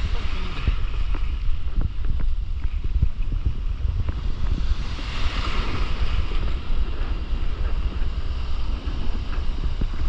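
Wind buffeting the microphone of a camera at water level in the surf, over the wash of breaking waves and water splashing against it. A hiss of whitewater swells about five seconds in.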